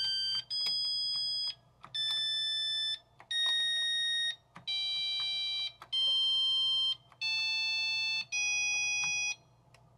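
Tandy 102's built-in beeper playing single buzzy electronic notes from keys pressed in a BASIC piano program: about eight notes in a row, each held for about a second with short gaps, at changing pitches.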